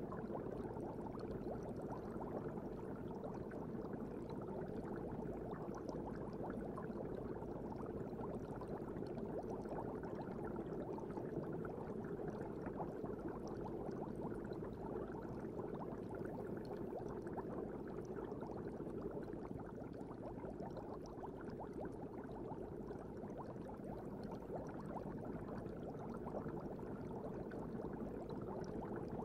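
Steady fish-tank water ambience: an even, muffled bubbling and burbling with fine crackles, without change.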